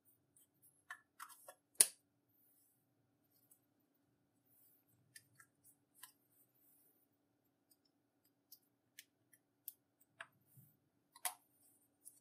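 Scattered small sharp clicks and taps from handling slime-making materials, the loudest about two seconds in and another near the end, over a faint steady hum.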